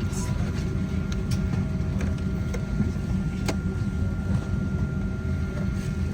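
Steady low rumble of a Boeing 737-800 cabin's air-conditioning on the ground during boarding, with a faint steady whine and a few light clicks and knocks.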